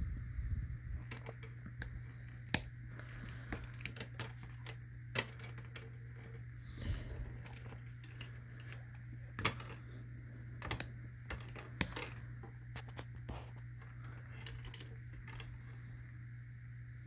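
Scattered clicks and light taps of plastic and rubber parts being handled as the head harness is fitted back onto an Israeli 4A1 gas mask, over a steady low hum.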